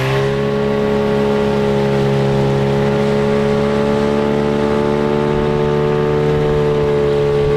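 Gladiator 9.8 outboard motor running at steady high revs during its break-in, pushing the boat along on the plane. The pitch holds nearly level, creeping up slightly.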